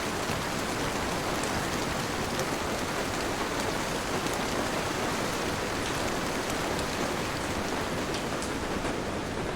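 Steady heavy rain falling, a dense even hiss with scattered individual drop ticks.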